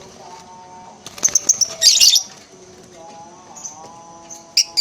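Lovebirds giving shrill, high-pitched chirping calls in quick clusters, loudest from about one to two seconds in and again briefly near the end.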